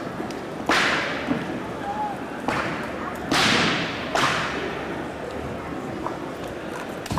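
Four sharp slaps from a long fist (changquan) wushu performer's strikes and stomps, each with a short echoing tail from the large gymnasium, over a low murmur of crowd chatter.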